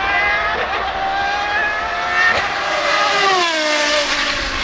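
McLaren Solus GT's Judd-derived 5.2-litre naturally aspirated V10 running at high revs as the car comes up the track, the note falling in pitch about three seconds in as it goes past.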